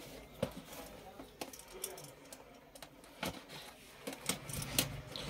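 Cardboard box being slit open with a utility knife: scattered soft clicks and scrapes of the blade cutting packing tape and cardboard flaps being pried apart.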